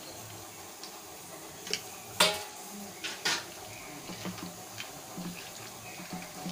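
A few sharp clanks against a stainless-steel bowl, the loudest about two seconds in with a short metallic ring. Then the soft, wet squishing of raw chicken pieces being mixed by hand into a thick spice marinade.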